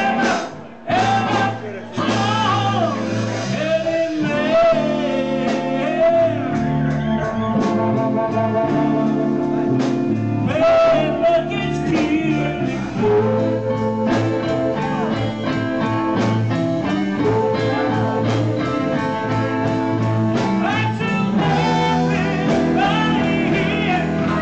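Live blues band playing an instrumental break: a harmonica solo with wavering notes over electric guitar, bass and drums.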